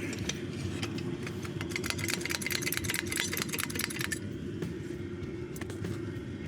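Diesel heater running with a steady low rumble, and a quick patter of clicks between about one and four seconds in.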